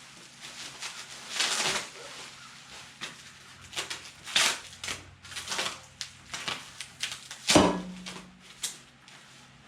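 Rustling packaging and parts being handled while a cargo-rack kit is unboxed, in short scattered bursts, with one louder knock about seven and a half seconds in.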